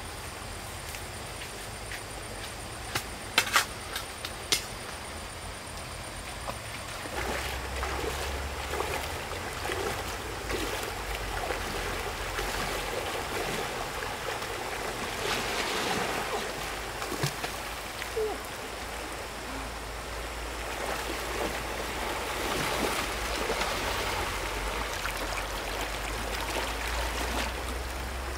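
Small stream running and trickling, with irregular splashing and sloshing of disturbed water from about seven seconds in. A few sharp clicks stand out about three to four seconds in as the loudest sounds.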